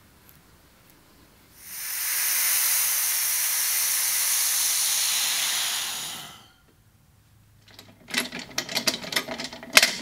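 Compressed air rushing out through the ball valve of a resin-casting pressure pot, a loud steady hiss lasting about five seconds as the pot is depressurised, which then fades out. Near the end comes a quick run of metallic clicks and clinks.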